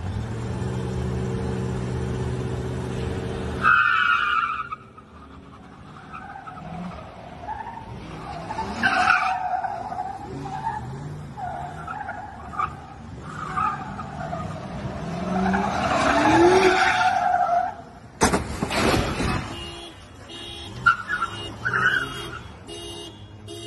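Pickup truck doing donuts: the engine holds a steady high rev for a few seconds, then the tyres squeal in long wavering squeals while the engine revs rise and fall. There is a brief loud burst of noise about 18 seconds in, and a fast, evenly repeating pulsing near the end.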